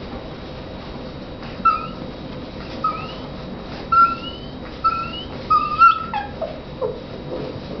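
Six-week-old border collie puppies whimpering as they jostle to nurse: about six short, high squeaks, each sliding slightly up in pitch, starting about a second and a half in, then a longer whine that falls steeply in pitch near the end.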